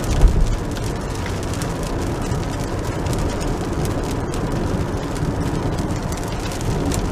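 Steady road and engine noise inside a moving Toyota's cabin, with rain on the windshield, and a brief low thump just after the start.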